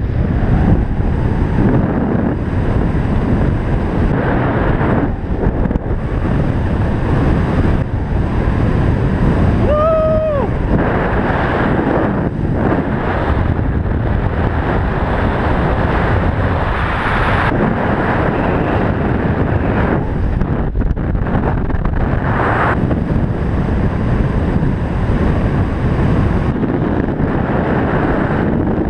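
Loud, steady wind noise on the microphone: air rushing past a speedflying pilot's harness-mounted camera in fast flight. About ten seconds in there is a brief pitched tone.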